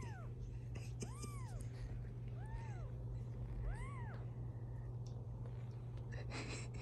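16-day-old British Shorthair kittens mewing: four short, high mews, each rising then falling in pitch, in the first four seconds.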